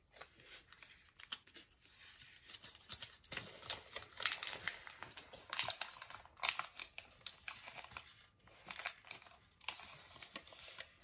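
Square origami paper rustling and crinkling as it is folded and creased by hand on a tabletop, in short, irregular crackles.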